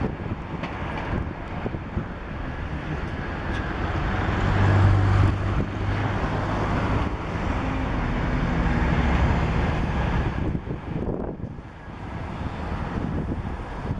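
Low rumble of an Airbus A380's four jet engines on final approach, mixed with wind buffeting the microphone. The loudness rises and falls unevenly, with a stronger low hum about four to six seconds in and a dip near the end.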